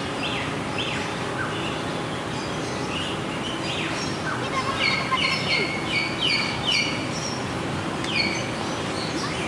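Birds chirping and calling over steady outdoor background noise, with a quick run of repeated chirps about halfway through.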